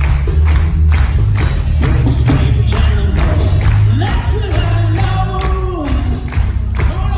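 Live rock band playing at full volume: heavy bass and a steady drum beat, with a singing voice coming in after about two seconds.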